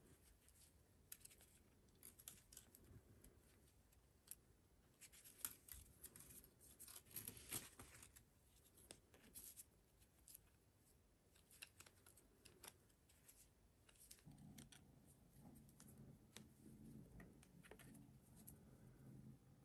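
Faint clicks and scratches of a metal crochet hook working single crochet stitches in cotton yarn over a thin wire, scattered through near silence. A faint low hum comes in about 14 seconds in.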